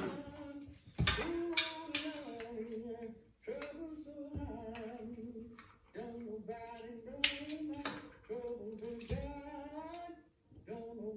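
A voice singing a slow, wavering melody in phrases about two seconds long, with small clicks and knocks from handling among them.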